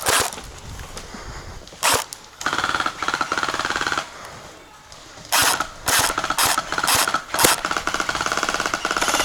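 Electric gel blasters firing: a single sharp shot about two seconds in, then long full-auto bursts with the gearbox's rapid rattling buzz, and in the second half several sharp shots mixed with further sustained bursts.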